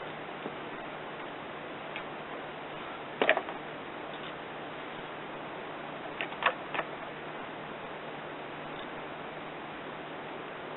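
A few sharp metallic clicks and knocks over steady hiss: one about three seconds in and a quick cluster around six to seven seconds. They are the sound of parts and tools being handled as the recoil starter housing is refitted to the lawn mower.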